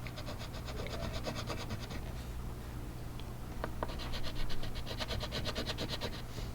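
Colouring on paper with rapid back-and-forth scribbling strokes, about ten a second, in two spells of a couple of seconds each with a short pause and a few light taps between.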